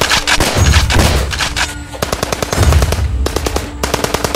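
Several bursts of rapid machine-gun fire, about ten shots a second, as a gunfire sound effect over a thudding music beat.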